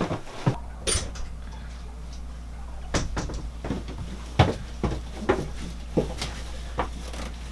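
Irregular footsteps and knocks, like someone climbing down a ladder and walking on a hard deck, over a steady low hum that starts suddenly about half a second in.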